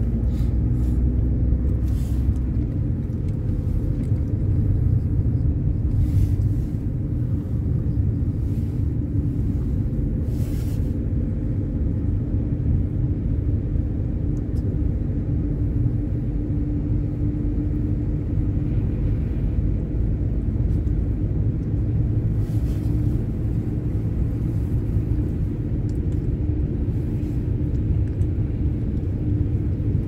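Steady low rumble of tyre and road noise inside a car's cabin as it drives on a snow-covered highway, with a faint steady hum and a few brief faint ticks.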